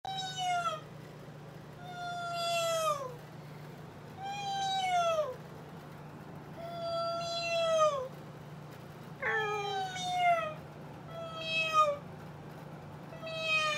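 Repeated meowing: about seven drawn-out meows in a row, roughly two seconds apart, each falling in pitch at its end.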